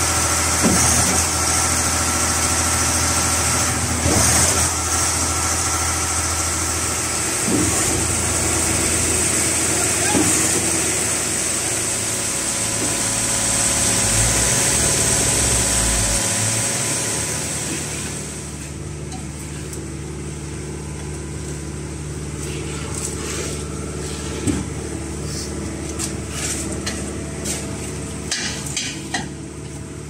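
Diesel engines of a transit concrete mixer truck and a Putzmeister trailer concrete pump running steadily, with a high hiss over the engine hum. About 18 seconds in, the sound drops to a lower, quieter hum with scattered knocks and clatter.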